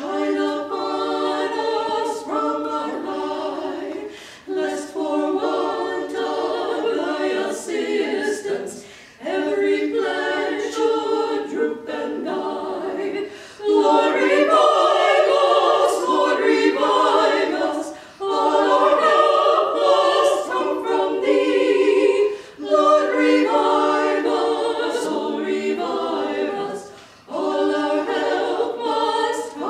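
Women's vocal quartet singing a cappella in close harmony, an early American hymn or folk song sung in phrases of about four seconds with short breaths between them. The phrases grow louder about halfway through.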